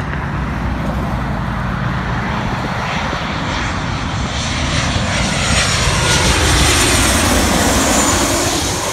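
Boeing 737 jet airliner on low final approach, passing close overhead. Its engine noise grows louder over several seconds, with a high whine that slides down in pitch as the jet goes by.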